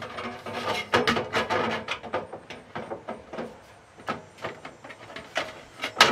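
Metal ceiling flange scraping and clicking as it is slid up a double-wall stainless flue pipe, with a faint metallic ring early on and a sharper knock near the end.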